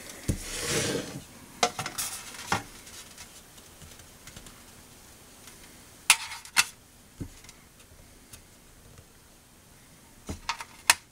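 Thin aluminium tray scraping and tapping as it is set down on a wooden bench, then a few sharp light taps as small circuit boards are put down on the tray, the loudest pair about six seconds in and a few more near the end.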